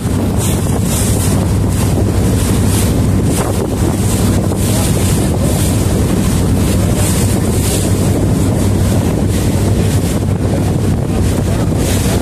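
A motorboat's engine drones steadily under way, with wind buffeting the microphone in uneven gusts and water rushing past the hull.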